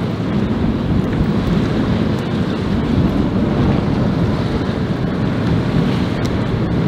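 Wind buffeting the microphone in a steady low rumble, over the wash of choppy water.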